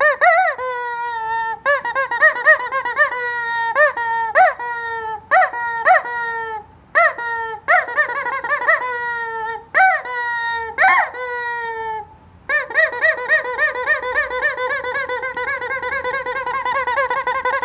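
Squeezed rubber chicken toy squawking: a run of short squawks, each rising and falling in pitch, then one long held squawk that sags slightly in pitch from about twelve and a half seconds in.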